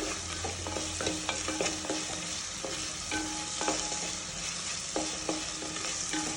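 Crushed small onions and garlic frying in hot oil with a steady sizzle, stirred in the pan, with irregular scrapes and knocks of the stirring utensil, some ringing briefly, against the pan.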